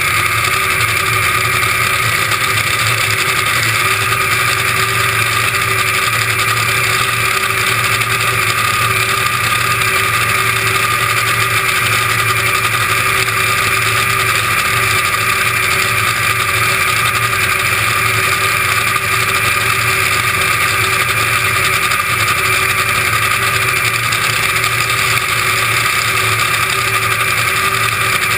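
A Top Fuel dragster's supercharged nitromethane V8 idling steadily at the starting line, with no revving.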